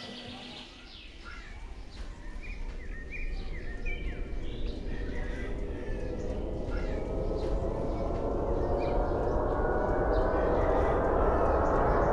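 A low rumbling swell that grows steadily louder and slowly rises in pitch, a tension-building riser from a film soundtrack, with birds chirping over its quieter opening seconds.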